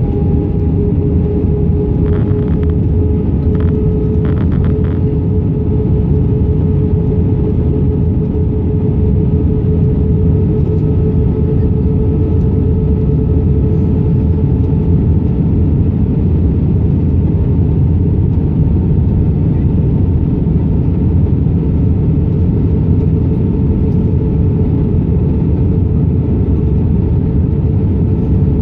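Cabin noise inside an Airbus A319-132 on descent: a steady, loud drone of the IAE V2500 turbofan engines and airflow over the fuselage, with a steady tone that rises slightly in pitch over the first few seconds. A few faint clicks a few seconds in.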